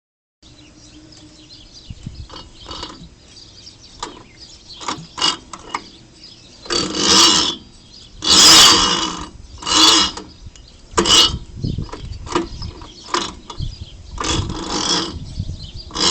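Irregular mechanical clicks and clanks, with several louder rattling bursts of about half a second to a second each, from a Kohler K301 single-cylinder engine before it runs. The owner suspects a bad bearing.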